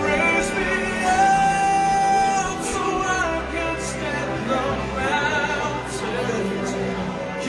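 Music: a solo voice sings long held notes with vibrato over sustained instrumental accompaniment.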